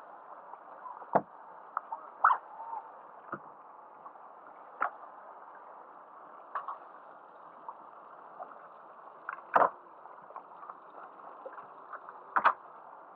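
Small motorboat rocking at rest on harbour water: a steady muffled rush with water lapping, broken by irregular sharp knocks and clicks against the hull and fittings, the loudest a little after a second in, near two seconds, near ten seconds and near twelve seconds.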